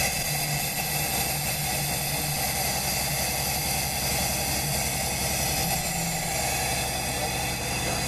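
Beam-mounted ultrasonic seamer running as it seams overlapped synthetic backing fabric: a steady mechanical hum with several steady high-pitched tones over it.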